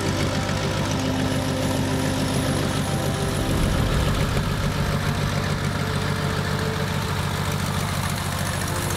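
Radial engine of a 1931 Waco QDC biplane running steadily, with a rapid even pulsing of cylinder firings.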